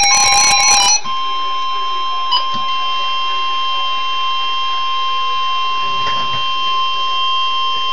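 Emergency Alert System warning tone: a single steady, loud, unbroken beep near 1050 Hz, the weather-radio attention signal that announces a severe thunderstorm warning. About a second in, a screeching burst of digital alert header data cuts off and the tone carries on alone.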